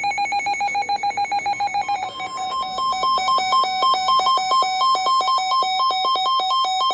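Electronic weather-alert alarm signalling a severe thunderstorm warning. A single tone beeps rapidly for about two seconds, then it switches to a fast warble between two pitches.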